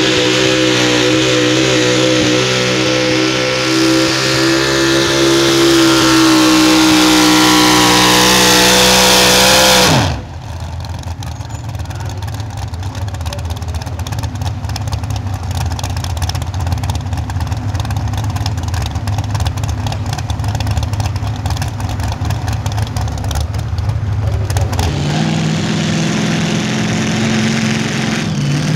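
Supercharged engine of a super modified four-wheel-drive pulling truck at full throttle under load, its pitch climbing, then shut off about ten seconds in with the pitch falling away. A long stretch of crowd applause follows. Near the end another supercharged pulling truck's engine comes in, idling.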